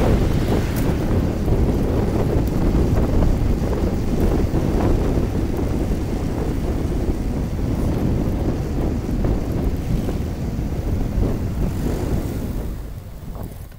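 Wind buffeting the microphone of a bike-mounted TomTom Bandit action camera while cycling on a road, a loud steady low rumble. It dies down near the end as the bike slows.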